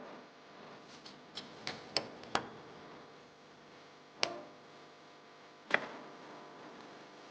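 A series of sharp clicks and knocks: five quick ones in about a second and a half, then two louder single knocks about a second and a half apart, over a faint steady hum.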